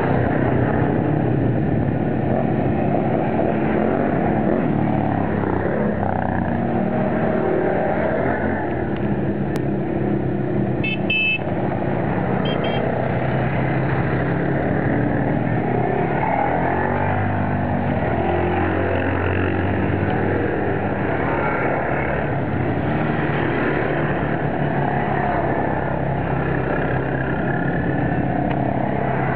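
Quad bike engine running under way, its note rising and falling with the throttle. Two brief high beeps about a third of the way through.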